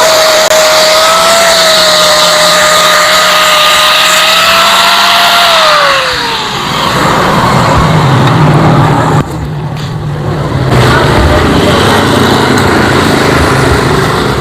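A small motor whines at a steady high pitch, then winds down about five and a half seconds in. A lower rumble follows.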